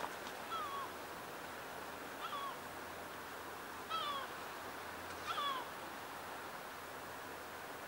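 Four short animal calls, each sliding down in pitch, over a steady wash of sea waves.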